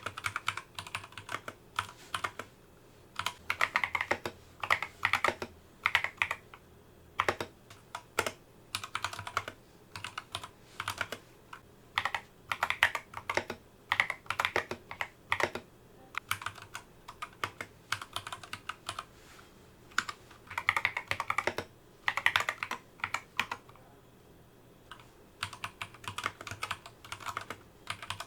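Geeky GK61 hot-swap mechanical keyboard being typed on in quick bursts of key clicks, with short pauses between runs, as a typing sound test.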